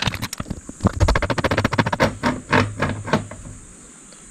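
Pliers and small metal flashlight parts clicking and clattering in a rapid, irregular run of sharp taps as the pliers are handled and set into a dive flashlight's metal head, dying away about three and a half seconds in.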